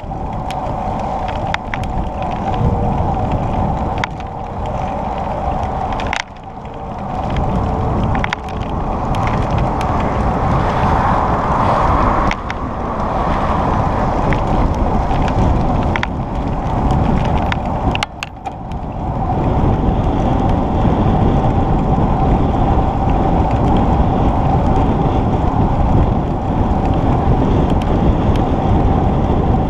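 Steady rush of wind and rolling noise on the microphone of a camera riding on a moving bicycle, with scattered rattling clicks. The rush drops briefly twice, about six and eighteen seconds in.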